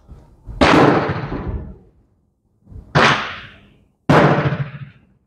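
Three gunshots from other shooters on the range, a second or two apart, each a sharp crack followed by about a second of fading echo off the covered concrete firing line. The first is the loudest.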